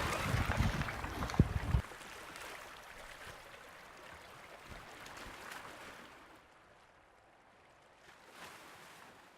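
Water rushing and splashing, with a few sharp knocks, that cuts off abruptly about two seconds in, leaving a faint wash of water that swells briefly twice as it fades away.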